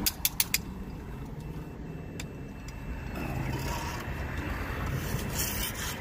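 Metal hand tools clinking against a fire-sprinkler gate valve's tamper-switch bracket: four quick sharp clicks in the first half second and one more about two seconds in, over a steady low rumble.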